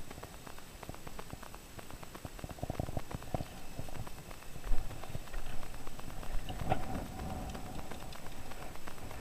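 Rapid, rhythmic clicking of a spinning reel being cranked on a lure retrieve.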